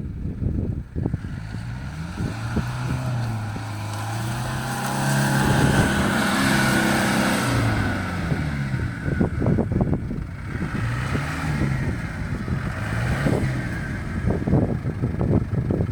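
A 4x4 SUV's engine revving up and down several times as it is driven off-road, its pitch highest a third of the way in. Short knocks and crackles run throughout.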